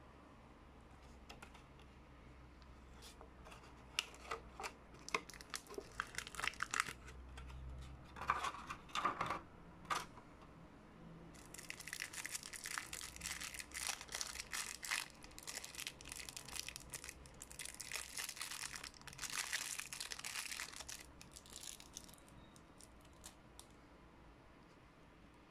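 Packaging being handled with scattered clicks and taps, then about ten seconds of plastic wrapping crinkling and tearing as it is taken off a small mini camera.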